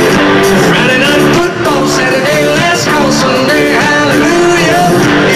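Live country-rock band playing loudly with a male lead vocal singing over it.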